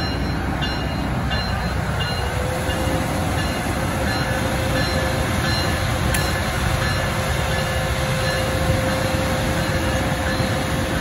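Siemens Charger SC-44 diesel-electric locomotive running close by, a steady loud engine noise heavy in the low end, with a steady hum that comes in about two seconds in.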